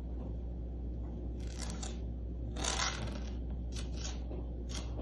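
Fingernails scratching and tapping on a wooden tabletop in several short strokes, the loudest about halfway through, over a low steady hum.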